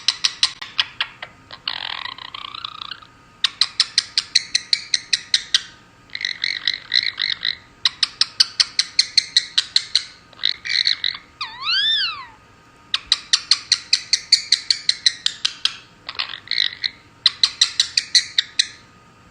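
Female Indian ringneck parakeet making a rapid, frog-like clicking croak in bursts of a few seconds, her imitation of a conure's voice. The bursts are broken by short warbled notes, a brief rasp about two seconds in, and a rising-and-falling whistle near twelve seconds.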